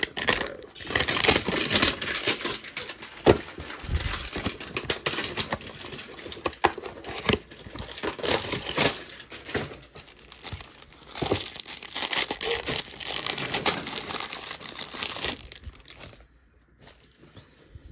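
A cardboard trading-card hanger box (2023-24 Panini Prizm) and its wrapping being torn open by hand, a run of tearing and crinkling with many sharp snaps, that stops about two seconds before the end.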